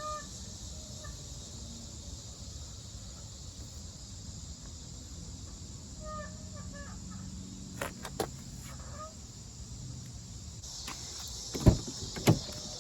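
Two loud, sharp clicks near the end, half a second apart: a torque wrench clicking over as the lug nuts reach torque, with fainter clicks a few seconds earlier. Behind them are a steady high insect hiss and short bird calls.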